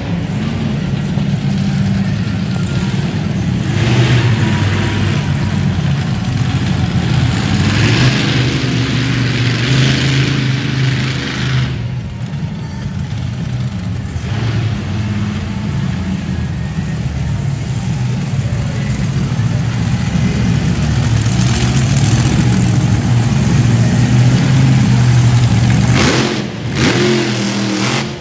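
Monster truck engine revving hard, the loud engine note surging and easing with the throttle. It drops back about twelve seconds in, builds again, and cuts back near the end.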